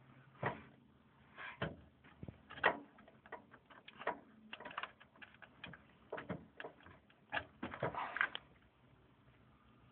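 Irregular clicks and taps of an Intel LGA775 CPU socket being opened by hand, its metal retention lever and load plate being unlatched and lifted. The clicks start about half a second in and stop shortly before the end.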